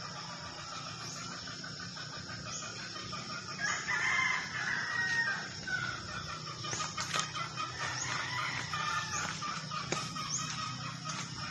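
A rooster crowing once, about four seconds in, with a falling end to the call, over a steady high-pitched drone and short chirps repeating every second or so.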